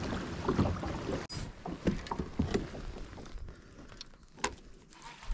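Water sloshing and lapping against a fishing kayak's hull. About a second in, the sound drops quieter, and there are a few sharp clicks and knocks from rod and gear being handled on board.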